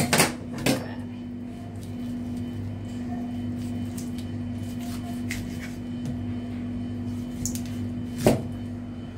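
A knife chopping raw chicken into pieces on a cutting board: a few sharp knocks, two close together at the start and the loudest near the end, over a steady low hum.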